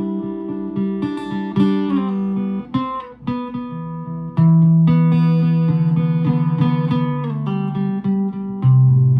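Solo guitar improvisation: plucked notes and chords left to ring over a held bass. A louder chord is struck about four seconds in, and a deeper bass note comes in near the end.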